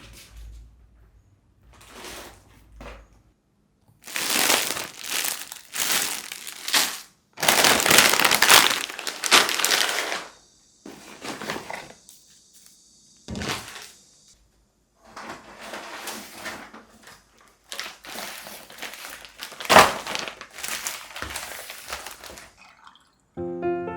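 Something being crumpled and crinkled by hand in irregular bursts with short pauses, with a steady high hiss for a few seconds near the middle.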